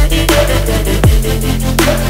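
Background music: an electronic instrumental with a sustained deep bass and heavy kick drums that drop in pitch.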